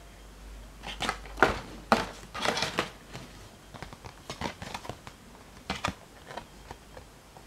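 Handling noise from a plastic infrared thermometer and its printed cardboard packaging card being turned over in the hands: a quick cluster of scratchy rustles and clacks about a second in, then lighter scattered rustles.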